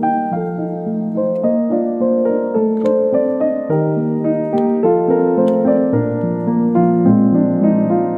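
Background music played on a piano-like keyboard: a steady stream of notes over chords.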